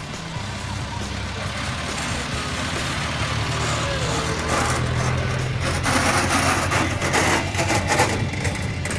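A 4x4's engine running slowly as it tows a line of soapbox carts up the hill. The carts' wheels rattle and rumble over the tarmac as they pass, loudest about six to eight seconds in.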